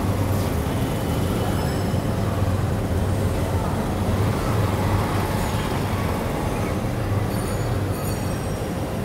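Steady city street traffic noise: a continuous low rumble of engines and road noise.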